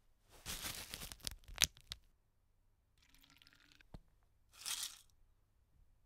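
Studio foley of handling noise: a rustle with several sharp crinkling clicks lasting about a second and a half, a single sharp knock about four seconds in, then a short hissing rustle near the end.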